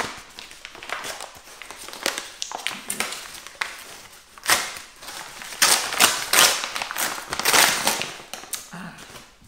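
Brown paper mailing bag being torn open and crinkled by hand: an irregular run of paper rustles and short rips, loudest a little past the middle.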